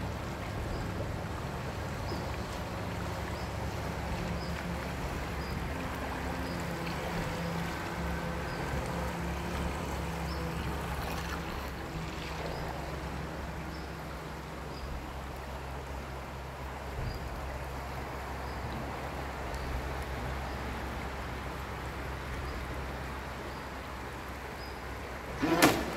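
Thunder Tiger Atlantic Yacht RC model boat running on its brushless electric motor, over the steady rush of river water. A sudden louder burst comes near the end.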